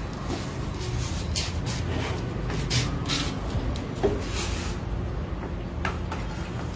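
Handling knocks and short rustles as the plug, inlet hose and fittings of a portable pressure washer are worked by hand, over a steady low hum.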